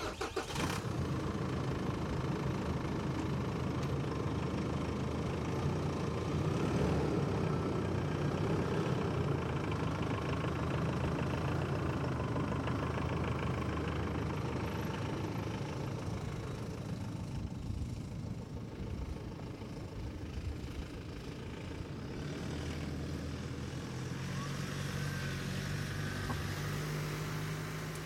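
Car engine running steadily while driving, with road noise; the engine note rises a little about three-quarters of the way through.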